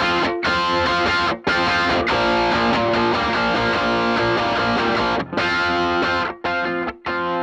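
Electric guitar through a distortion pedal into a cranked Fender Bassman '59 amp, playing heavily distorted sustained chords. They are cut short by brief sudden stops a few times.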